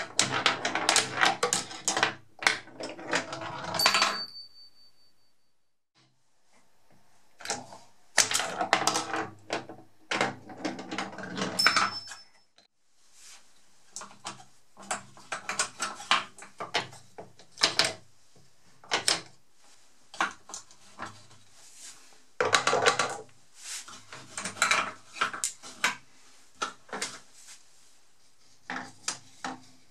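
Glass marbles rolling and clattering through a homemade wooden pinball machine, knocking against wood and wire rails, with the wooden flippers clacking. The sound comes in bursts of rapid clicking, with a near-silent pause of a few seconds about four seconds in.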